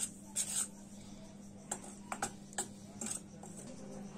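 Metal spoon stirring thick batter in a steel bowl, in a handful of short scrapes and clinks against the bowl, over a faint steady low hum.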